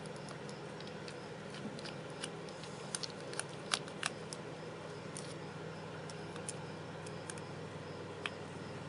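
Irregular small clicks and taps of metal carburetor parts being handled and fitted by hand, the sharpest a few seconds in, over a steady low hum.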